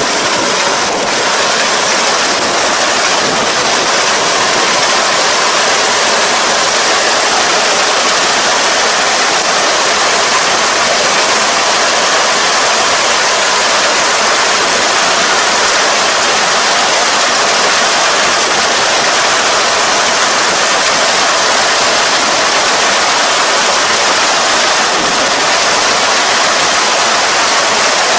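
Combine harvester running at work: a loud, steady, even hiss of machinery with no distinct beats or changes.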